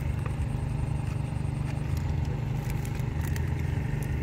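A small engine running steadily as a low, even drone, with a few faint clicks and rattles in the middle from the bamboo fish trap being handled.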